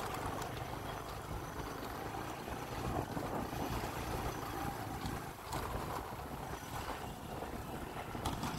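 Motorbike engine running under a steady rumble of wind noise on the microphone.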